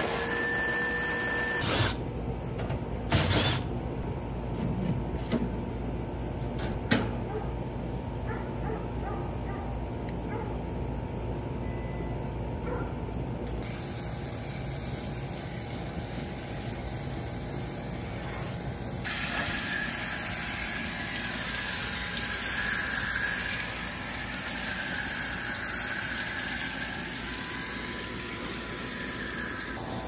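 Work on an air-conditioning condenser during coil cleaning. A few sharp clicks and knocks come in the first part. From about two-thirds of the way in, a steady hiss of spray sits over a constant hum.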